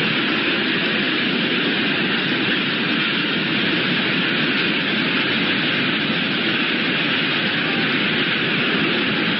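Steady, even rushing noise of typhoon wind and rain, unchanging in level throughout.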